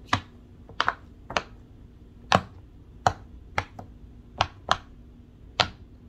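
Silicone pop-it fidget toy, its bubbles pressed in one at a time by a finger, giving about ten sharp pops at an uneven pace.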